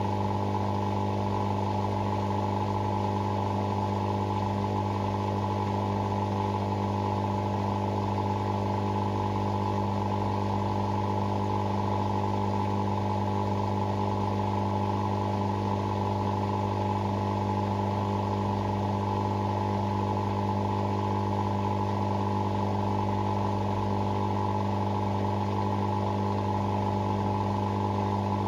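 Hoover Sportswear 1300 AI130 washing machine running with a loud, steady, unchanging hum, which cuts off suddenly at the very end.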